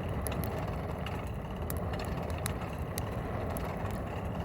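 Juniper-wood forge fire burning, with scattered sharp crackles and pops over a steady low rumble.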